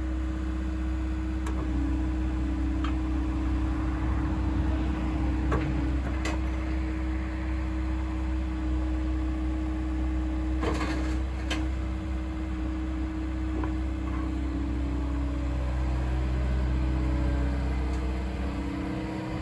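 Liebherr A314 Litronic wheeled excavator's diesel engine idling steadily with a constant low hum, the machine standing still. A few sharp clicks are heard here and there.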